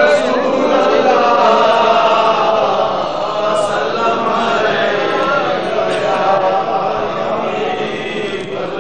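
A crowd of men chanting together, many voices overlapping in a steady devotional chant.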